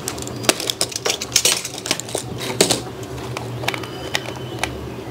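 Irregular clicks, taps and small rattles of hard plastic as a toy RC robot dog is turned over and handled by hand.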